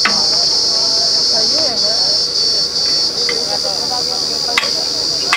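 A loud, steady, high-pitched chorus of insects shrilling, briefly dipping a few times, with faint voices beneath it and a sharp click about four and a half seconds in.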